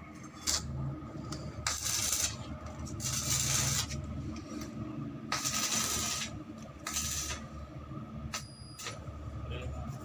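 Steel parts of a spiral staircase scraping against each other as they are handled: several short metal-on-metal scrapes, a sharp click about half a second in, and a brief metallic ring near the end, over a low hum.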